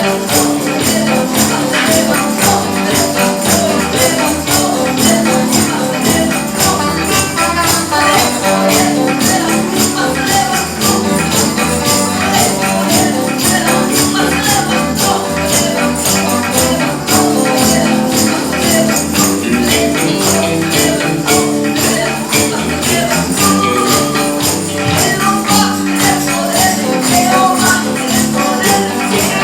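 Gospel band music playing with a steady, busy percussion beat.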